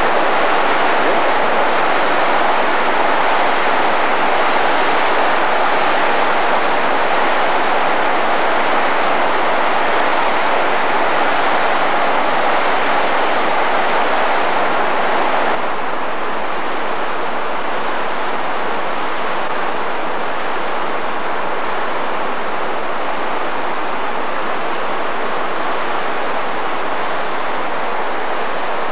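Steady rush of whitewater: a rocky stream running fast over rapids. The noise is loud and even, and drops a little in level a little past halfway through.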